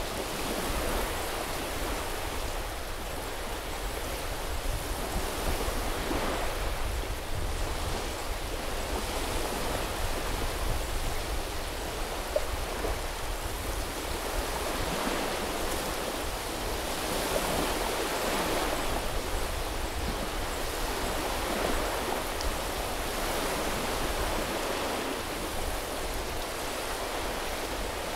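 Small waves washing onto a sandy beach: a steady hiss of surf that swells every five or six seconds as each wave breaks and runs up the shore.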